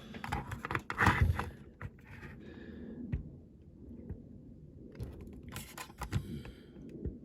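Handling noises on a workbench: a small diecast model car and tools being picked up, turned over and set down, giving a string of scrapes, clicks and light knocks, loudest about a second in.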